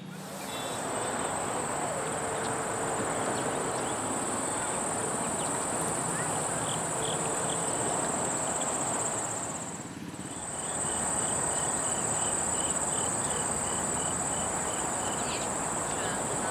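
Insects in tall prairie plants trilling in a steady, unbroken high-pitched chorus over a constant background rush, with a fainter chirp repeating about twice a second in the second half. The whole sound dips briefly about ten seconds in.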